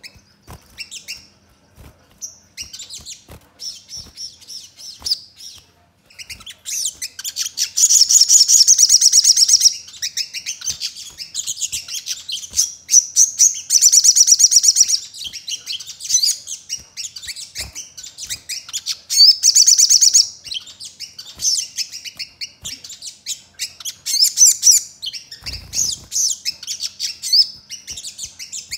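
Caged sunbird (sogon) singing: high, fast chirping and chattering, sparse and quieter at first. Loud, dense trills follow, about a quarter of the way in, around the middle and about two-thirds through. A brief low bump comes near the end.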